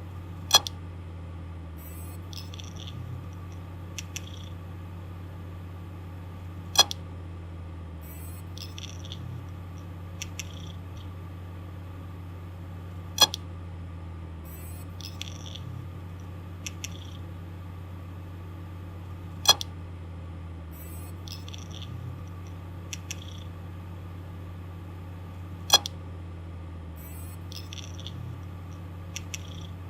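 Damaged hard disk drive running with a steady low hum, giving a sharp loud click about every six seconds with fainter ticks and short chirps between, the same cycle repeating five times: the clicking of a malfunctioning drive.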